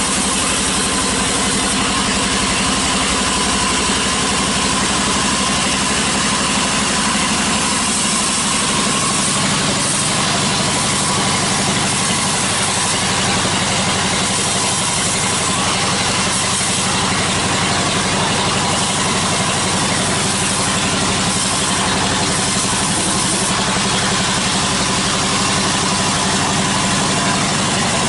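Sawmill bandsaw running steadily with a constant mechanical drone as its blade cuts through a slab of teak.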